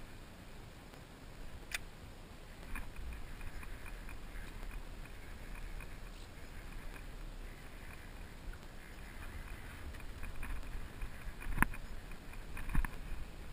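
Kayak being paddled: light water swishing and dripping from the paddle, with two sharp knocks near the end.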